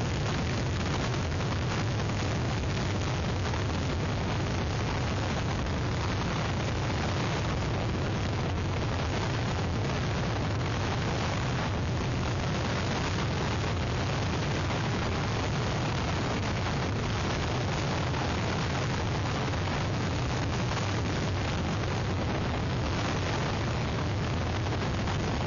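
Hurricane-force wind blasting across an outdoor webcam microphone: a steady, unbroken rush of noise with a heavy low rumble.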